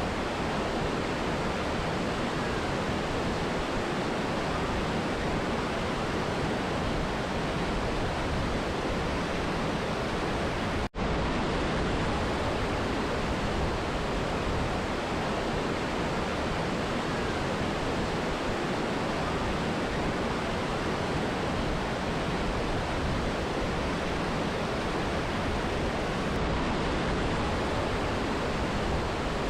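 Steady rushing of a mountain river and waterfall, with a brief dropout about eleven seconds in.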